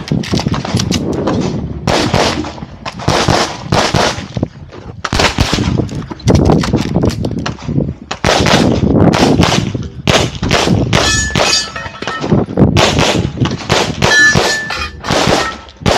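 Rapid fire from a 9mm CZ Shadow 2 pistol shooting 147-grain rounds, loud shots in quick strings with short pauses between them, and steel targets ringing with a short clang after some hits, around the 11 and 14 second marks.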